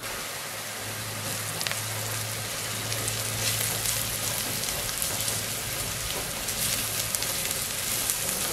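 Chopped onions, garlic and ground spices sizzling and crackling as they fry in oil in a pot, stirred with a wooden spoon. A low steady hum runs underneath for most of it.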